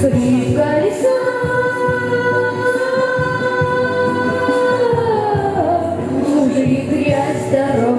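A boy singing a pop song over a backing track, holding one long steady note from about a second in, then sliding down in pitch near the middle.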